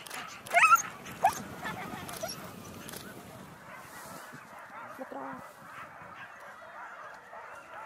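Sled dogs of an eight-dog team yelping and barking, eager to run at the race start. A few loud, high yelps come in the first second and a half, then fainter barking and whining.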